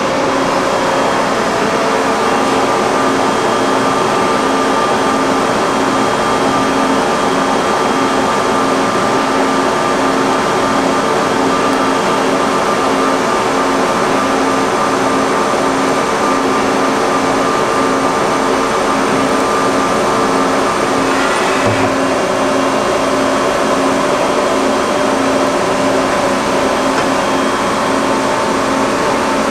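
A 1984 Niigata HN50A CNC horizontal machining center running under power as its spindle head traverses up and down the column. It makes a steady mechanical hum with a tone that pulses in an even rhythm, and a brief knock about twenty-two seconds in.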